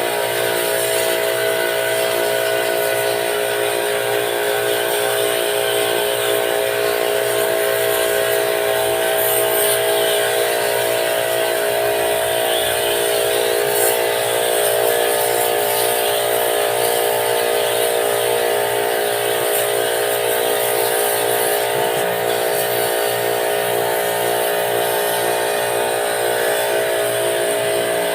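Electric pressure-washer pump running steadily at one pitch, with a constant hiss of water spray, as used to wash the coils of a split-type air conditioner.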